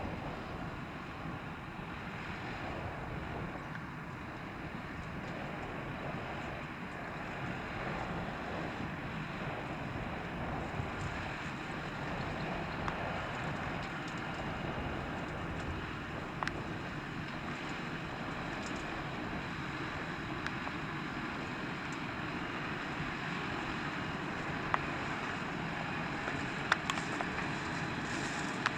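Tractor engine running steadily at work in a hay field, with wind buffeting the microphone. A few sharp clicks come near the end.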